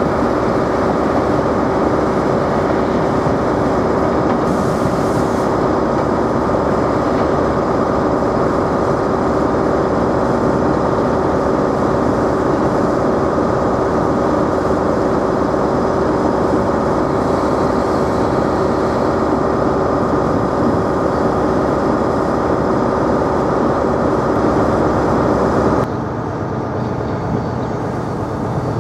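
Steady drone of a diesel train's engine, with a steady hum running through it. It cuts off abruptly about three seconds before the end, leaving quieter rail noise as an HST approaches.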